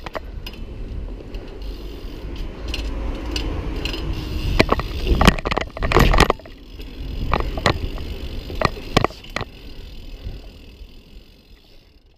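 BMX bike rolling over brick paving: a steady low tyre rumble with rattling from the bike, broken by a run of sharp knocks and clacks in the middle as the bike hits the ground. The sound fades out near the end.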